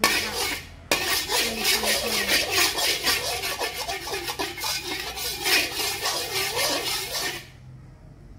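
Metal spatula scraping the bottom of an empty, dry metal wok in quick repeated back-and-forth strokes, a harsh rasping that stops near the end.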